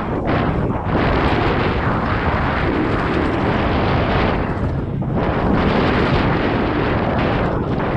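Wind buffeting the microphone of a camera riding on a mountain bike along a dirt trail, a loud continuous rush with a heavy low rumble, easing briefly about five seconds in.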